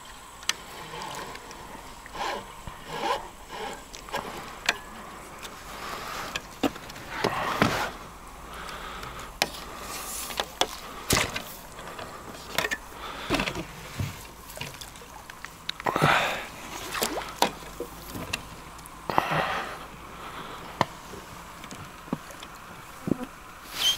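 Water splashing and sloshing in irregular bursts, with a few sharp knocks in between, as a hooked wild carp thrashes at the surface while it is played in.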